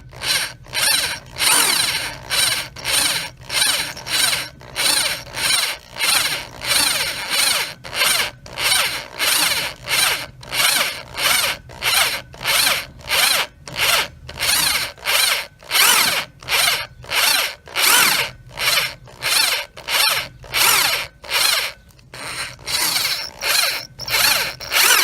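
Power drill driving a step bit into a steel foot peg mount, counterboring a drilled-out stripped bolt hole so a Time-Cert thread insert can sit recessed. The drill's trigger is pulsed on and off, about two short bursts a second, as the bit cuts the metal.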